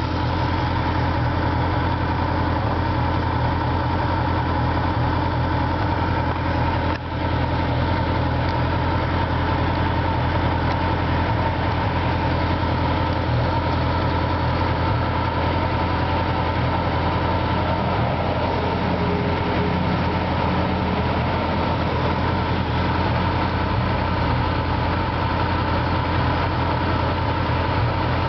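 Honda CB750 motorcycle's air-cooled inline-four engine idling steadily. There is one short dip in level about seven seconds in.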